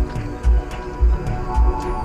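Electronic background music with a steady kick-drum beat, just under two beats a second, and sustained synth notes over it.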